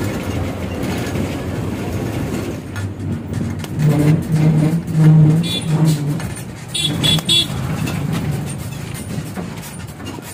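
A bus running on the road, a steady engine and road rumble, with a run of short, low, even-pitched tones in the middle.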